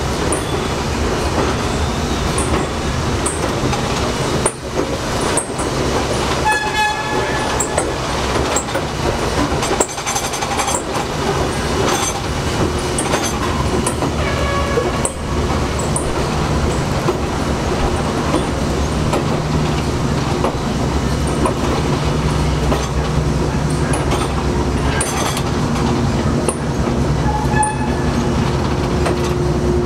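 R42 subway train rolling slowly along elevated track, heard from the open gap between two cars: a steady rumble with clicking over the rail joints. A few short high-pitched tones cut in through the first half, and a steady hum joins in later on.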